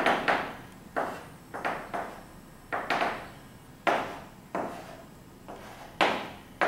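Chalk on a blackboard: a series of sharp taps and short strokes, about one or two a second, as lines are drawn.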